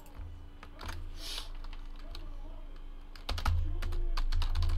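Typing on a computer keyboard: a run of quick key clicks, busier and louder in the second half, over a low steady hum.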